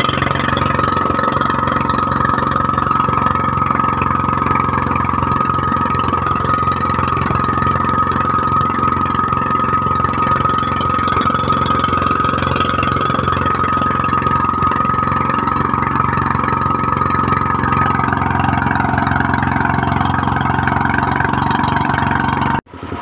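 Engine of a small outrigger fishing boat running steadily underway, with wind and water rushing past; its pitch drops slightly near the end, and the sound cuts off suddenly.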